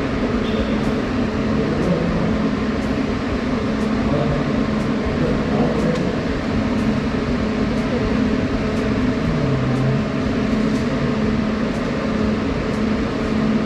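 Workshop machinery running steadily: a constant hum with a low drone and a rushing noise, with faint ticks about once a second.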